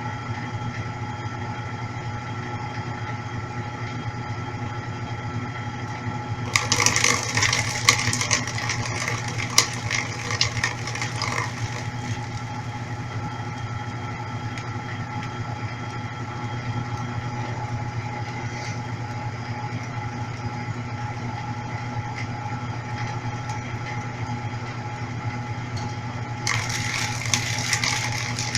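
Brastemp Clean 5 kg top-loading washing machine in its intermediate spin: a steady motor hum. About seven seconds in a louder, harsher stretch lasts some five seconds, and another begins near the end.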